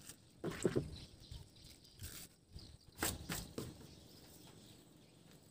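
Hands crumbling bread bait and handling small plastic snack packets on a wooden bench: a few short rustles and knocks, about half a second, two seconds and three seconds in.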